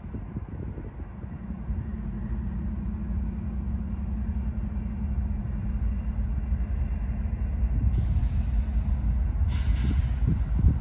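Diesel locomotive approaching, its steady low engine drone growing louder, with two short hisses about eight and ten seconds in.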